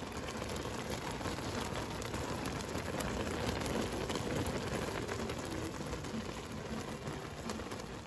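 Blackberries in water at a rolling boil in a pot: steady, dense bubbling and popping.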